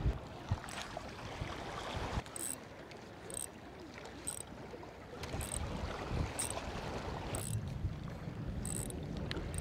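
Wind on the microphone and sea water washing against a seawall, with short high hisses about once a second as the eging rod is jerked and the spinning reel cranked during the retrieve.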